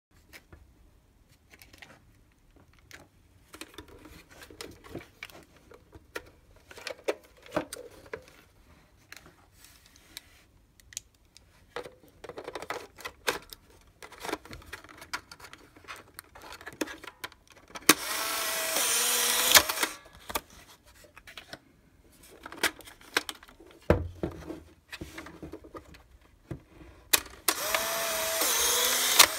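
A Polaroid Amigo 620 instant camera being handled, with scattered plastic clicks and snaps from its film door and body. Its film-ejection motor whirs twice for about two seconds. The first run follows the loading of the film pack, when the camera pushes out the dark slide. The second follows a sharp shutter click, when it pushes out a print.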